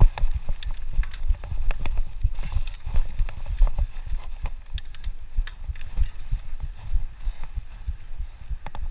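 Mountain bike descending a rough dirt singletrack, heard through an action camera worn by the rider: constant irregular low thudding from trail bumps and wind on the microphone, with frequent sharp clicks and rattles from the bike.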